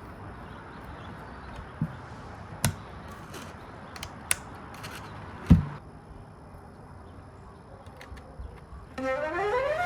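A few scattered sharp knocks and clicks over a steady background hiss, the loudest about five and a half seconds in. About a second before the end, a rising swept tone begins, leading into music.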